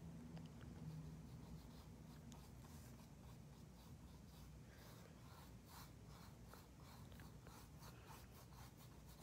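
Faint brush strokes of a paintbrush working paint onto a canvas, close to silence. In the second half they become a run of soft, regular strokes at about three a second.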